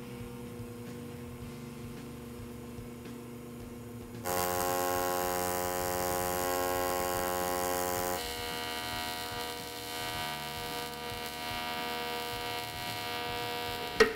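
Steady buzz of an AC TIG welding arc from a Miller Dynasty 350 on an aluminum engine block, its AC frequency turned down to about 107 Hz for the fill passes after the root pass. The buzz gets louder about 4 s in and changes tone again about 8 s in.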